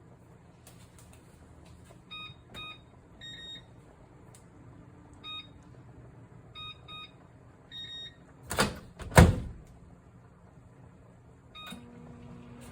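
Microwave oven control panel beeping as its buttons are pressed, about a dozen short beeps, then two loud thuds. Near the end there is one more beep, and the oven starts up with a steady hum and rising fan noise.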